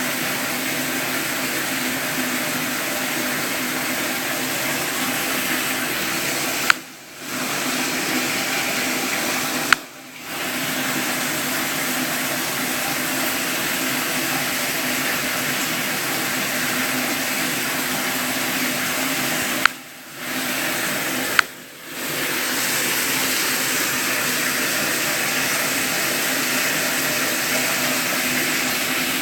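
Steady rushing water, broken four times by a sharp click followed by a short dropout of about half a second.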